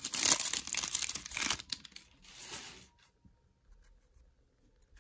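Thin clear plastic wrapper crinkling and tearing as it is pulled off a stack of trading cards, in a long burst and then a shorter one, before going quiet about three seconds in.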